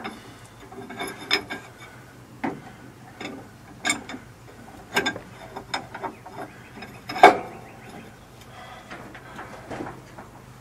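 Scattered metallic clicks and knocks of a wrench being worked on a seized engine to turn it over by hand, with one louder knock about seven seconds in, over a faint steady hum.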